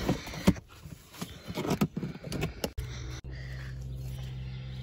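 Rustling, clicks and knocks of things being handled and moved while rummaging through bags and a plastic case in a car. A bit over halfway in, a steady low hum starts, then cuts off suddenly near the end.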